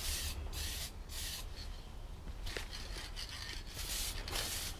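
Hand sanding of the 3D-printed plastic submarine hull: repeated hissing rubbing strokes, about two a second, fainter around the middle.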